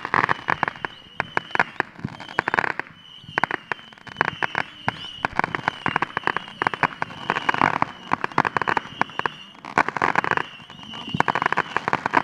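Fireworks going off overhead: a dense run of sharp cracks and pops that comes in waves, with short lulls between volleys.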